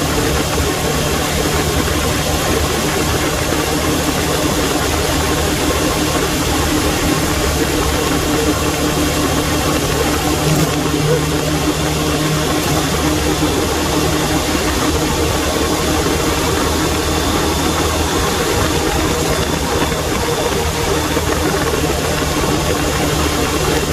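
Suzuki Bandit 600's inline-four engine running at a steady, even speed while riding, with a constant rush of wind noise over it.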